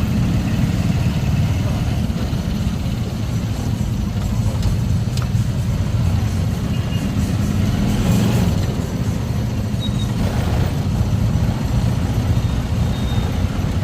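Motorcycle engine of a Filipino tricycle running steadily under way, a constant low rumble heard from the sidecar.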